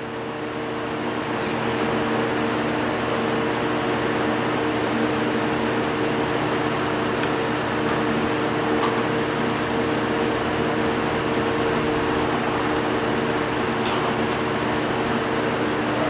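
Steady machine hum and rushing air that builds over the first two seconds and then holds, with several short hissing spurts of spray paint in clusters.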